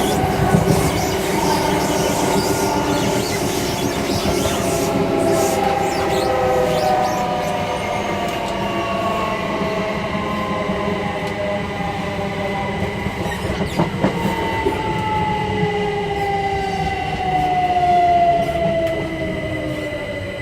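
Class 357 electric multiple unit slowing down, heard between the carriages: the traction motor whine falls steadily in pitch over continuous wheel and rail noise.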